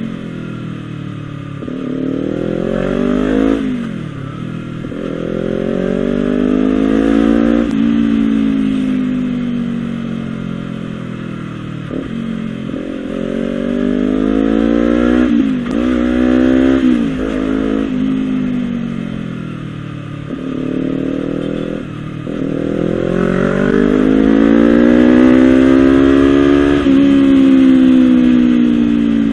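Honda CBR250RR parallel-twin engine through a Villan SV1 slip-on aftermarket exhaust, revved repeatedly: the pitch climbs and falls several times, with a run of quick sharp blips around the middle and a long climb and slow fall near the end.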